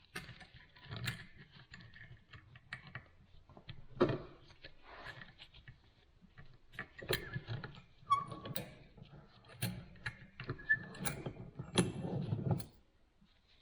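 Small metal parts and welding wire being handled during bench-vise reassembly: scattered light clicks, taps and rattles, with a sharper knock about four seconds in.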